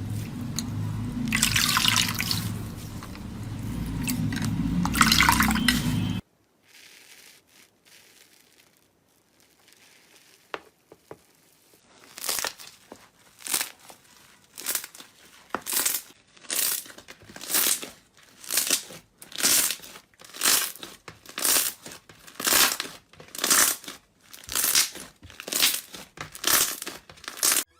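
Slime being handled in wet, squishy ASMR clips: a dense stretch of squelching, a sudden cut about six seconds in to a few faint clicks, then a steady run of short squishes, a little more than one a second, as the slime is pressed over and over.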